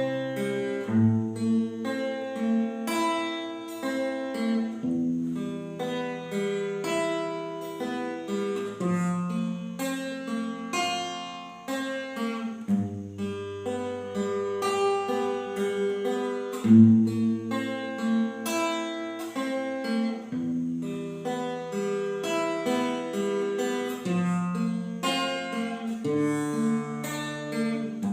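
Instrumental break of a song: a keyboard and plucked-string melody over held bass notes that change every couple of seconds, with a steady percussion tick.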